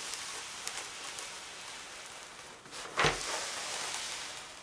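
Rustling and crackling of a large diamond-painting canvas and its plastic cover film as it is unrolled and pushed across a table. There is a sharper, louder crackle with a thump about three seconds in.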